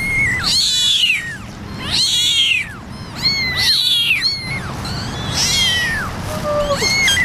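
Newborn kittens mewing: a string of five or six high-pitched cries, each falling in pitch, about a second apart.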